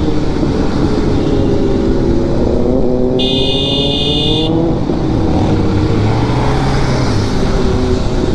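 Kawasaki Z900 inline-four engine running under way, its pitch rising and falling with the throttle. Near the middle a horn sounds for about a second.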